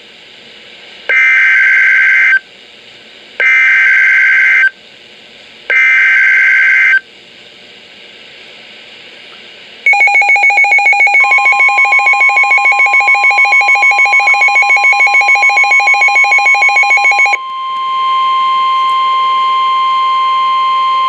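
Emergency Alert System SAME header: three bursts of shrill, buzzing digital data tones, each about a second long with a second's gap between them, marking the start of a new warning. Then a rapidly pulsing alert tone sounds for about seven seconds. About a second after it begins, a steady single tone joins it and carries on after the pulsing stops.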